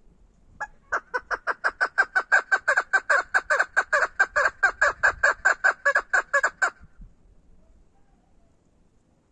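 Caged female chukar partridge calling: one note, then a fast, even run of about five notes a second for nearly six seconds that stops abruptly.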